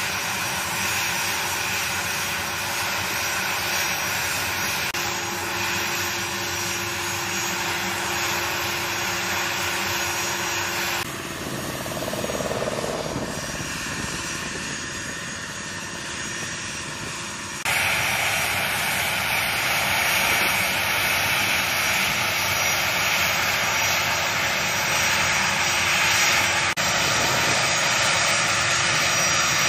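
Twin General Electric TF34 turbofan engines of an A-10C Thunderbolt II running, a steady jet whine over a rush of air. The sound drops abruptly to a quieter, duller stretch about 11 seconds in and jumps back to full level at about 18 seconds.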